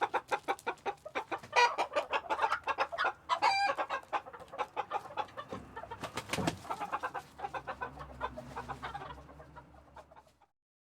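A flock of chickens clucking busily in a coop, with a couple of louder, drawn-out calls in the first few seconds. The sound fades out about ten seconds in.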